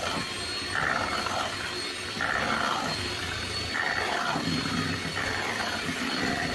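Electric hand mixer running steadily with a high whine, its beaters churning cake batter in a stainless steel bowl while eggs are beaten one by one into the creamed butter and sugar. The churning swells about every second and a half as the beaters move through the batter.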